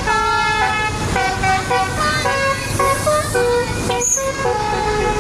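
Telolet horn on a tour bus playing a quick melody of short horn notes, several tones sounding together and changing pitch every fraction of a second, over the bus's low engine rumble. The tune breaks off briefly about four seconds in, then carries on.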